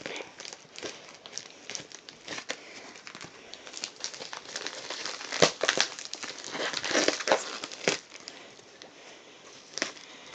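Parcel wrapping crinkling and tearing as it is pulled and cut away, in irregular crackles with the loudest rips about halfway through.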